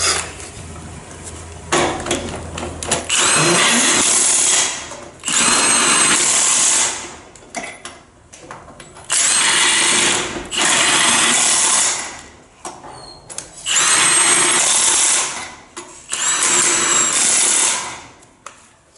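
Milwaukee cordless impact wrench hammering on the race car's wheel lug nuts, in six bursts of one to two seconds each, grouped in three pairs.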